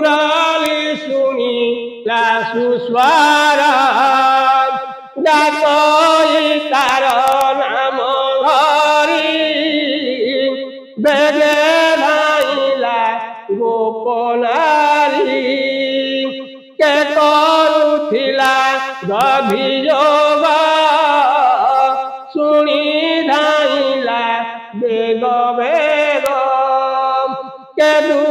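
A solo voice chanting devotional verses of the Odia Bhagavata in a slow, melodic sung recitation. The chant moves in phrases of two to five seconds, with short breaks for breath between them.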